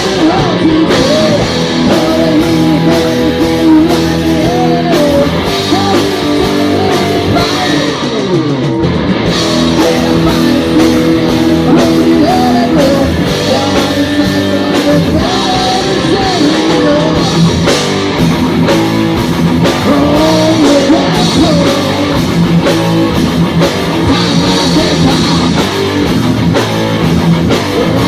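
Live heavy metal band playing loud: electric guitars, a drum kit and a singing voice.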